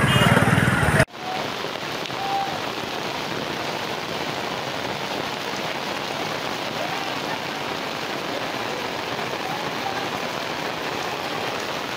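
Heavy rain pouring steadily onto a flooded street, an even hiss of rain on water. For about the first second, before an abrupt cut, a vehicle engine runs.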